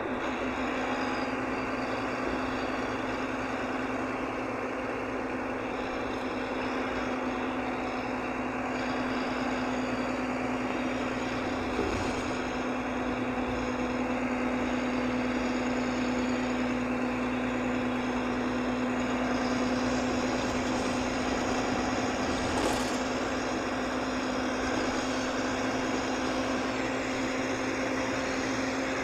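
Volvo B9R coach's rear-mounted 9.4-litre six-cylinder diesel heard from inside the cabin, cruising at a steady pitch over road and tyre noise. A brief knock sounds about twelve seconds in and another about twenty-three seconds in.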